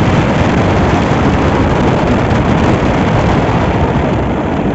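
Loud, steady rushing noise of a moving vehicle, with wind on the microphone.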